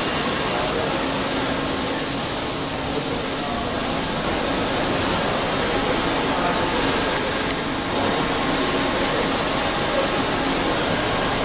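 DECKEL MAHO DMC 80 H hi-dyn horizontal machining center running, with a steady hissing rush of coolant spraying inside its enclosure and a faint hum.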